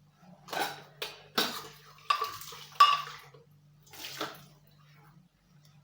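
Dishes and cutlery clinking and knocking as kitchenware is handled: a handful of separate clatters, the sharpest about three seconds in.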